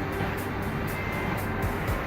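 Background music with a steady beat: crisp high ticks about four times a second over a steady low bass.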